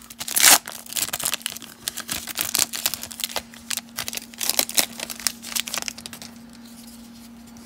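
Wrapper of a 1994 Stadium Club baseball card pack being torn open and crinkled as the cards are pulled out: a dense run of crackles and rips that stops about six seconds in.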